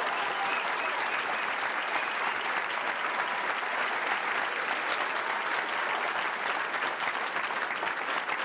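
Large crowd applauding, a dense, steady clapping.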